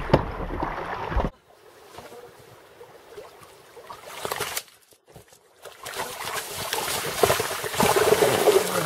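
Loud rushing wind noise on the microphone that cuts off about a second in. Then water splashing in the shallows as a hooked fish thrashes at the water's edge and a man plunges his hands in to grab it, the splashing loudest near the end.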